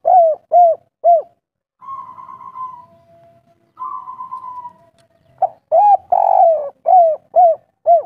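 Spotted dove cooing. A phrase ends in three short arched coos at the start, and two softer, quavering coos follow. From about five and a half seconds in, a full loud song phrase comes: a short coo, a long one, then three short notes, the 'kuk 3' ending.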